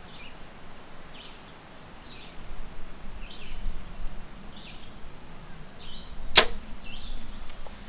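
A compound bow shot released once, a sharp snap about six and a half seconds in, as an arrow is loosed at a 3D target.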